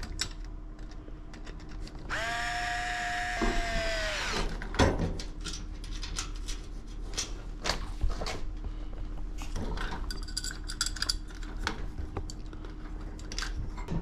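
Cordless screwdriver motor whining for about two seconds while driving a screw into a metal switch box; its pitch dips once under load and then falls as it stops. Short clicks and knocks of the switch, cover and screws being handled come before and after.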